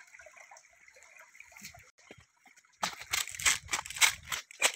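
Faint trickling water at first; then, about three seconds in, loud rapid crunching and rustling, about four strokes a second, of footsteps on dry leaves and stones.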